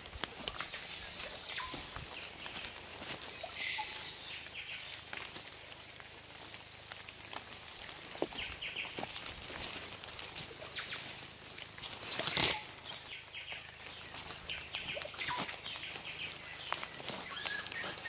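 Amazon rainforest ambience: scattered short bird calls over a thin, steady high tone, with footsteps and leaf rustle as someone walks through the undergrowth. There is a louder crunch about twelve seconds in.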